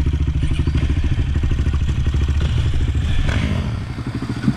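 Off-road bike engine running steadily at low revs, with a rapid, even firing pulse that dips briefly near the end.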